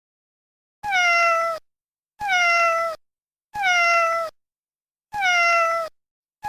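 A domestic cat meowing: four identical short meows, each falling in pitch, about one every second and a half, with another starting at the very end.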